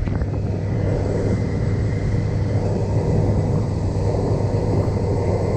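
Mercury 100 hp four-stroke outboard, a 2.1-litre four-cylinder, running steadily at cruise of about 4,700 rpm and 30 mph, over a constant rush of wind and water.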